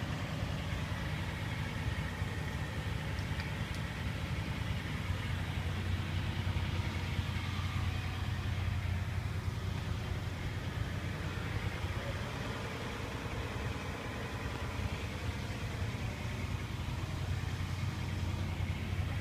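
John Deere 180 excavator's diesel engine running steadily at idle, a low even hum.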